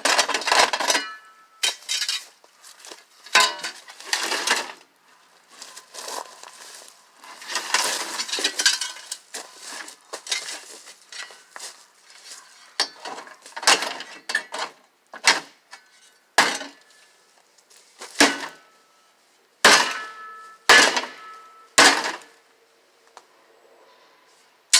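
An old microwave's motherboard and sheet-metal parts being smashed: irregular metal clanks and crashes, some with a short metallic ring, and a stretch of rattling and scraping debris about a third of the way in.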